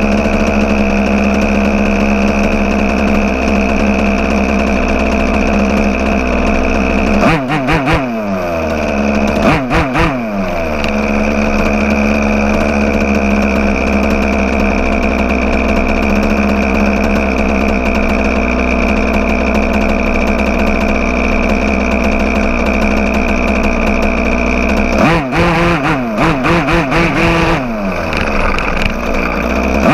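Small two-stroke gas engine of a 1/5-scale RC car running hard at a steady high speed. About a third of the way in, and again near the end, the throttle is let off and opened again, so the pitch drops and climbs back, with a few short knocks.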